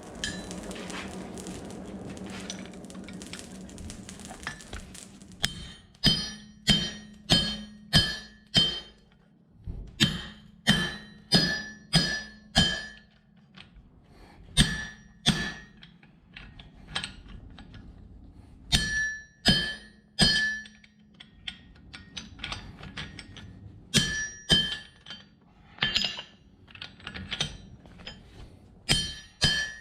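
Hammer blows ringing on a steel anvil, struck in quick runs of several blows with short pauses between them, as small steel pins are forged. For the first few seconds, before the hammering starts, there is a steady hiss with a low hum.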